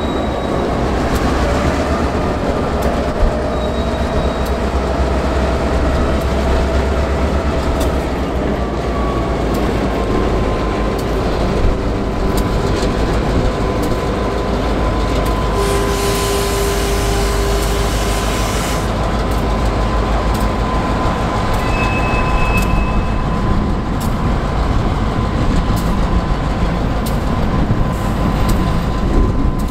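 Two CSX EMD diesel locomotives backing slowly, their engines giving a steady low rumble. A thin, steady wheel squeal comes in about a third of the way through and holds, and a burst of hiss comes near the middle.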